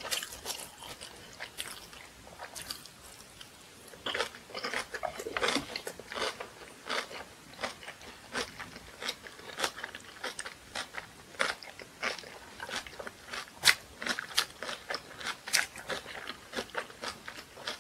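A person chewing a mouthful of napa cabbage kimchi, with irregular crunches several times a second that get louder about four seconds in.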